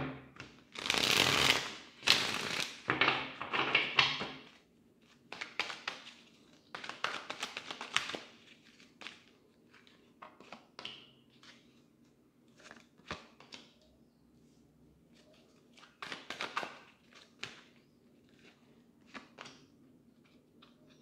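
A tarot deck shuffled by hand: about four seconds of dense card-on-card swishing, then scattered soft taps and clicks as cards are handled and drawn.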